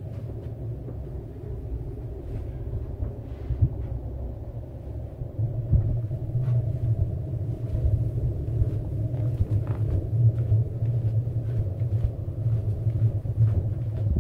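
Low steady rumble of a hand-held phone microphone being carried, louder from about halfway through, with faint footfalls as someone walks down a staircase.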